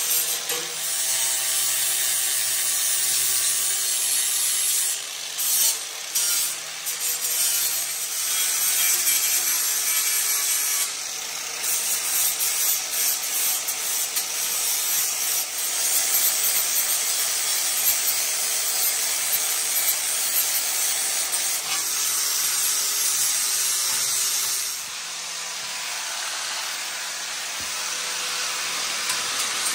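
Power tool working steel with a steady motor hum under a harsh, continuous grinding rasp, with a few brief lifts off the work and a softer stretch near the end.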